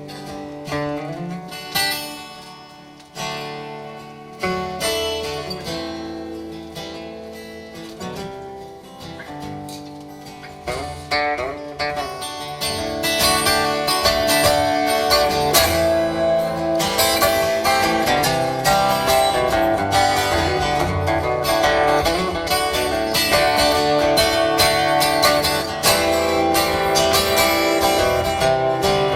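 Live band playing an instrumental passage led by guitars, quiet and sparse at first, then building up louder and fuller about twelve seconds in.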